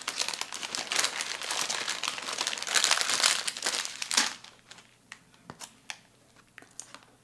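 Packaging being crinkled and unwrapped by hand for about four seconds, followed by a few light clicks and taps as the handling stops.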